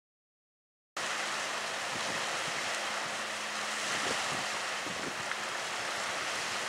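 Steady outdoor ambience, an even hiss, starting abruptly about a second in after silence, with a faint steady low hum beneath it.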